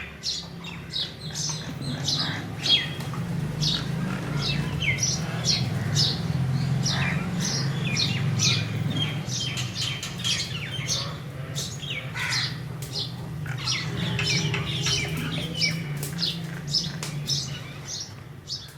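A flock of crows calling, many short caws overlapping one after another, over a steady low hum. The sound fades down near the end.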